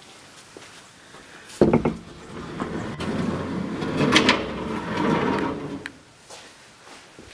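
Wooden door being opened: a sharp clack of the latch about a second and a half in, then several seconds of scraping and rattling as the door is pushed open.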